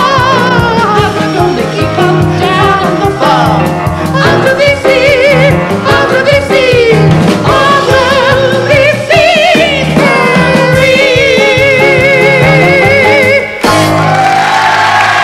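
A high, operatic-style voice singing with a wide vibrato over piano accompaniment, ending on a long held high note. Applause breaks in near the end.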